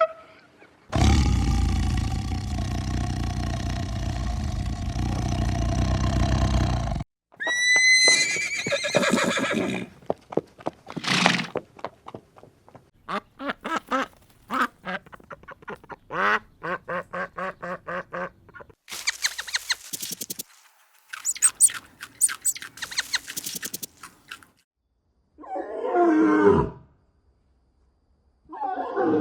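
Farm animals calling one after another in a string of short, separate clips, each cut off abruptly: a long steady call, rising cries, quick repeated calls, and a rough call near the end.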